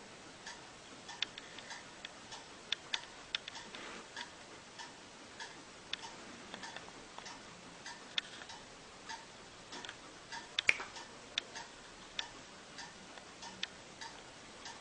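Faint, repeated ticking clicks, about two a second, over a low hiss, with one louder click a little past ten seconds in.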